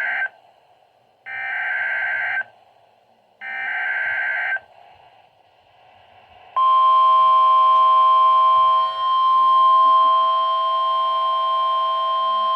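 Emergency Alert System SAME header: buzzy digital data bursts about a second long with a second's gap between them, the last two of three heard in full. About two seconds after the last burst, the steady weather-radio warning alarm tone near 1050 Hz starts, announcing a severe thunderstorm warning.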